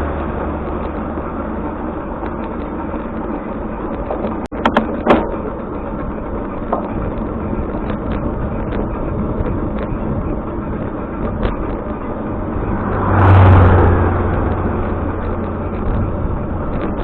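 Road traffic noise, with a vehicle passing with a low engine hum about thirteen seconds in. A few sharp knocks about four to five seconds in.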